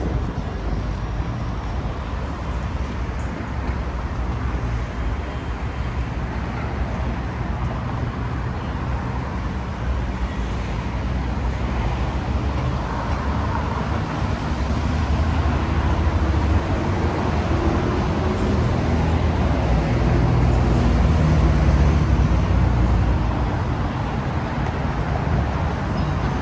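City road traffic: cars and buses running along a wide, busy road in a steady wash of noise. A low engine drone builds from about halfway through and is loudest about three-quarters of the way in, as a heavy vehicle passes close.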